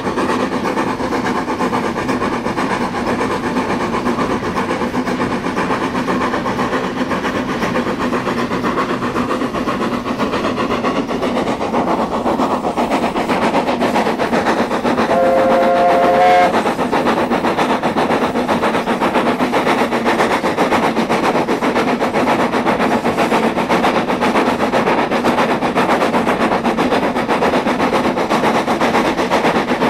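Hunslet saddle-tank steam locomotive running, heard from the footplate, with a quick, steady beat of exhaust and running gear. About halfway through it gives one short whistle blast of two notes lasting about a second.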